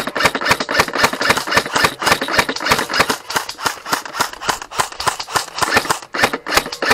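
Airsoft rifles firing a rapid run of sharp snapping shots, about six a second, with brief pauses between strings.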